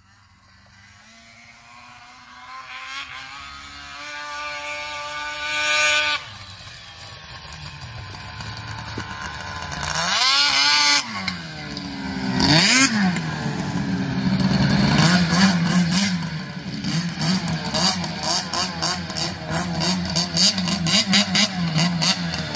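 Polaris XC snowmobile's two-stroke engine, a 700 bottom end with 800 cylinders breathing through CPI aftermarket pipes, revving as it comes in from a distance, climbing in pitch and loudness over the first six seconds. It drops off sharply, then revs hard past close by twice with falling pitch, and runs near with rapid throttle blips toward the end.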